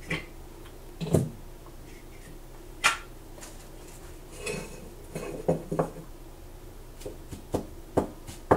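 Scattered light knocks and clicks of small objects being picked up and set down on a workbench, about nine over several seconds, as a finish is readied to be applied to the wooden pieces.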